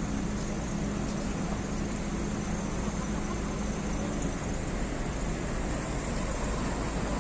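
Steady rumble of street traffic and running engines, with a constant low hum and no distinct events.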